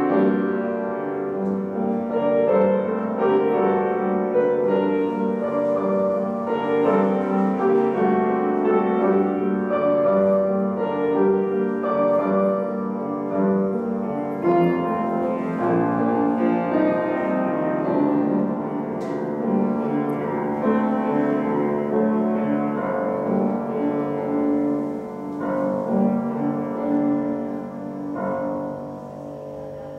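A grand piano played solo, note after note throughout, with the sound dying away near the end as the last notes ring out.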